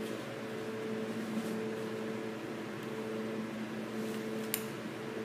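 Steady machine hum with a background hiss, and a single sharp click about four and a half seconds in.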